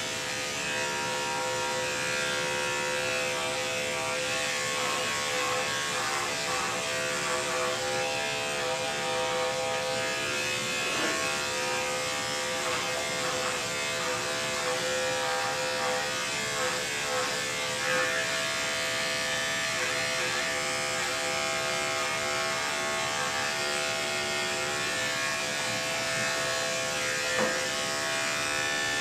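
Andis five-speed electric dog clipper fitted with a #10 blade, running with a steady electric hum as it is worked through a curly coat.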